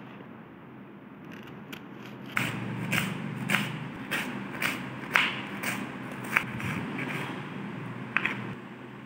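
Kitchen knife chopping an onion on a wooden cutting board: sharp knocks of the blade on the board, about two a second, starting a couple of seconds in after a few lighter cuts.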